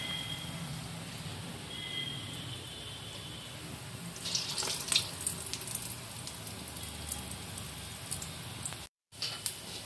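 Moong dal balls deep-frying in hot oil: a steady sizzle with scattered crackles that grows louder about four to five seconds in. Near the end the sound cuts out briefly twice.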